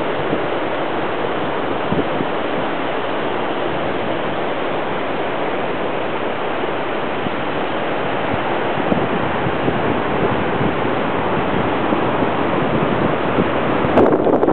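Steady rushing noise of surf and wind at a beach, with gusts buffeting the microphone near the end.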